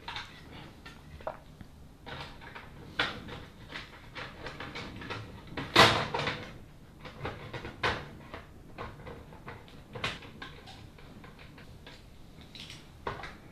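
3D-printed plastic parts clicking and knocking as a trunk lid with spoiler is handled and fitted onto its hinges on a plastic car body, the loudest knock about six seconds in.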